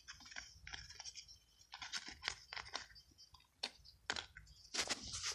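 Faint handling noise: scattered dry crackles and small clicks as hands shift rusty metal finds and coins over dry leaves and grass.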